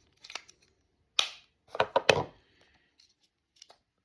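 Small plastic clicks and taps from handling AirPods earbuds and their charging cases: a sharp click a little after a second in, then a quick cluster of louder clicks around two seconds, with faint ticks before and after.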